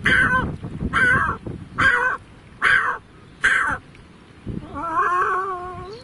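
A man imitating a cat's meow with his mouth: five short meows, about one a second, then one longer drawn-out meow near the end.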